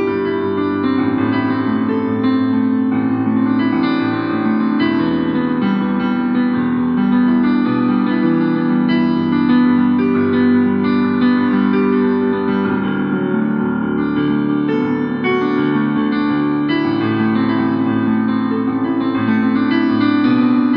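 Instrumental keyboard music, an electric-piano-like sound playing overlapping held notes and chords.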